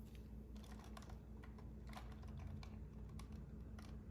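Soft, irregular light tapping and clicking, several small taps a second, close to the microphone.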